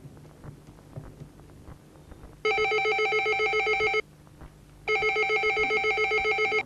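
Landline desk telephone ringing twice, each ring a fast warbling electronic trill about a second and a half long, starting about two and a half seconds in.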